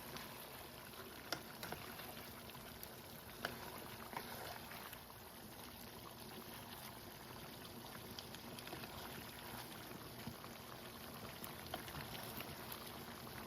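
Pumpkin and chicken stew simmering uncovered in a pot: a faint, steady bubbling with a couple of small pops. The pumpkin chunks are cooking soft in the gravy.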